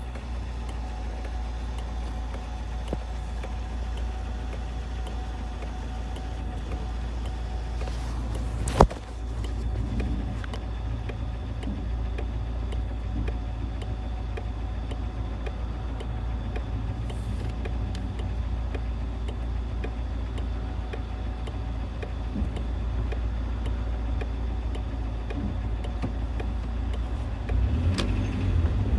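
2004 Jeep Wrangler's 2.4-litre four-cylinder engine running with a steady low drone. One sharp click about nine seconds in, and the sound grows louder near the end.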